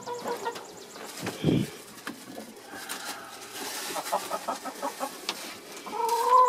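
Hens clucking inside a wooden coop, with a quick run of short clucks around four to five seconds in and a longer drawn-out call near the end. A muffled bump about a second and a half in.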